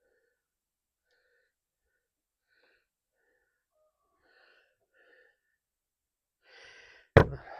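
Near silence for several seconds, then a short faint intake of breath and a sudden loud burst of breath from a man near the end.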